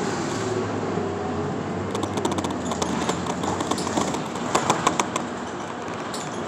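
Moving bus heard from inside the cabin: a steady engine and road drone, with a run of quick, irregular rattling clicks from about two seconds in until about five seconds.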